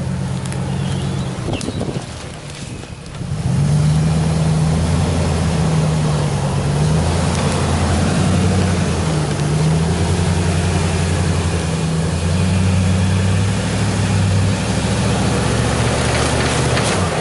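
2010 Ram 1500 pickup's engine through a Magnaflow exhaust, working under load as the truck pulls itself up out of a ditch. It is quieter at first, then about three and a half seconds in it comes up to a louder, deep note that wavers slightly in pitch and holds until just before the end.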